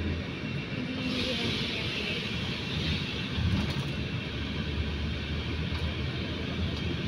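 Road and engine rumble heard inside a moving vehicle, steady throughout, with a rush of hiss that swells about a second in and fades a couple of seconds later.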